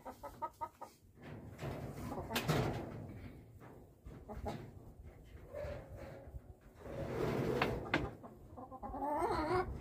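Chickens clucking, with rustling and a few sharp knocks from handling a cord at the wire fence.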